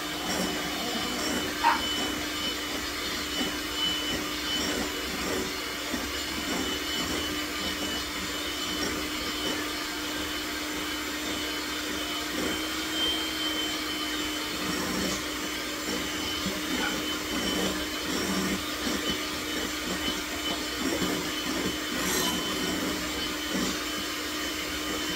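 Electric mixer running steadily, beating egg whites to a meringue while hot sugar syrup is slowly drizzled in. The motor gives an even whir with a constant hum.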